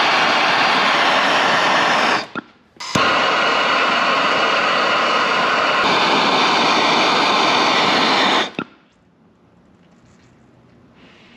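Handheld gas torch burning with a steady hiss while heating an aluminum engine case for brazing a crack. It cuts out briefly about two seconds in, coming back with a click, and stops about eight and a half seconds in, leaving low room noise.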